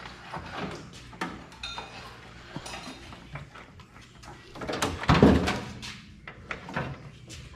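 Scattered metallic clanks and rattles of work on a pickup truck cab being lifted off its frame, with one louder, heavier clunk about five seconds in.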